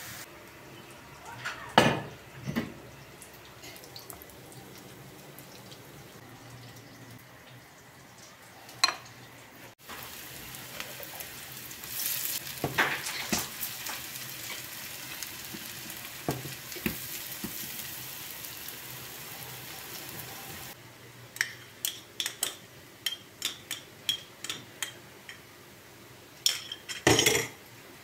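Zucchini fritters sizzling as they shallow-fry in oil in a pan, with scattered knocks and scrapes of a utensil against the pan as they are turned. There is a quick run of taps in the last several seconds.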